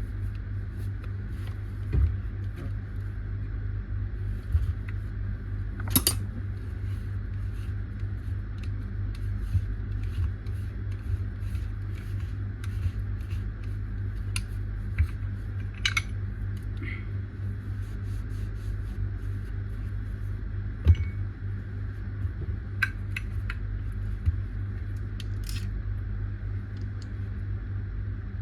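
Scattered light clicks and taps of small hard objects being handled, over a steady low hum.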